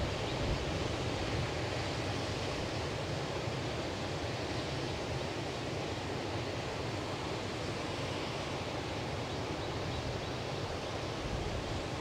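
Atlantic surf washing steadily on the beach, a continuous even rush of breaking waves, with some low wind rumble on the microphone.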